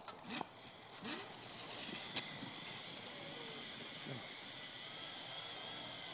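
Cheetah-run lure line being pulled fast across the grass by its motor, giving a steady high hiss-like whine. It starts after a sharp click about two seconds in, with a few short sounds before that.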